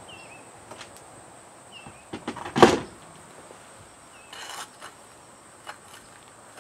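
A flat pry tool handled and scraped along the edge of asphalt shingles as they are worked loose: a louder scrape about two and a half seconds in, a short rasp a couple of seconds later, and light clicks between.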